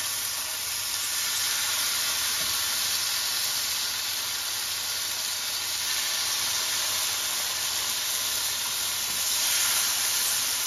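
Steady hiss at the gas stove under a frying pan with a little oil, as skewers of marinated chicken tikka are laid in to dry-roast; it swells a little near the end.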